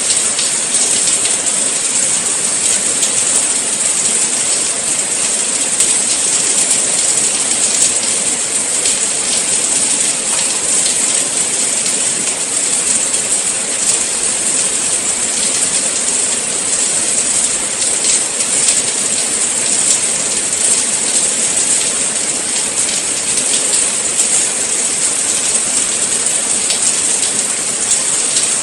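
Steady rain falling, a dense even hiss of drops with fine scattered patter, bright and high-pitched.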